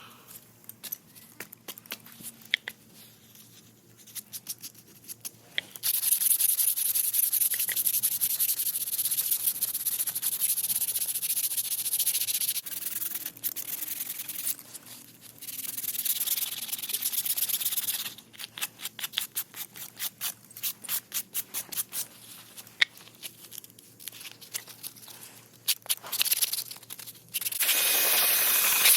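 Sandpaper rubbing across the garage door surface: long stretches of steady hissing scrubbing, then quick back-and-forth strokes several times a second.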